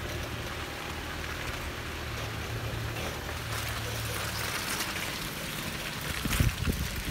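Off-road 4x4 vehicle on the move: the engine runs steadily low under a hiss of tyre and road noise, with a few louder thumps near the end.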